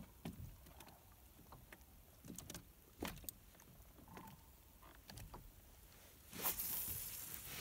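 Faint, scattered knocks and clicks of a fishing rod and reel being handled in a small boat. Near the end comes a longer, louder rush of splashing noise as a small channel catfish is lifted out of the water.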